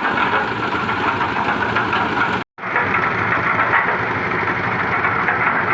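Engine of a concrete mixer-lifter machine running steadily. The sound cuts out for a moment about two and a half seconds in, then carries on.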